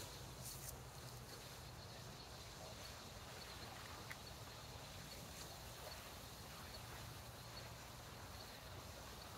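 Quiet riverbank ambience: a faint steady outdoor hiss with faint, evenly repeated high ticks and a brief high rustle about half a second in.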